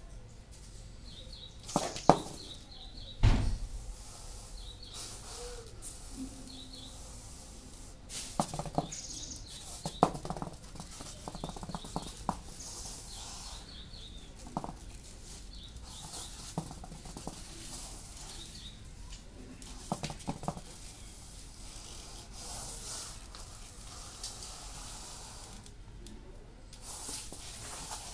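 Scattered sharp knocks and taps, the loudest two near the start a little over a second apart, with short high bird chirps now and then.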